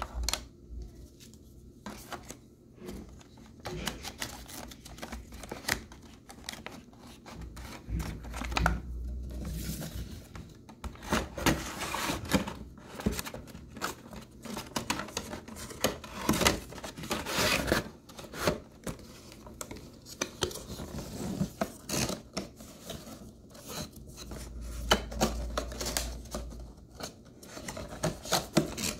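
Plastic and cardboard packaging handled by hands: a moulded plastic tray and a cardboard box lifted, slid and set down, giving irregular clicks, knocks and rustling that are busiest in the middle.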